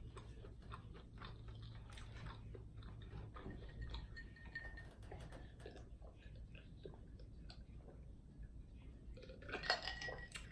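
A person chewing food close to the microphone: soft, irregular mouth sounds with small clicks. A brief, louder sound comes near the end.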